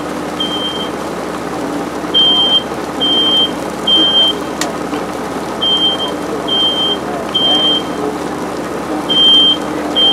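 Smoke alarm sounding the three-beep evacuation pattern: a high, steady-pitched beep three times in a row, then a pause, repeating about every three and a half seconds, set off by a couch fire. A single sharp click about four and a half seconds in.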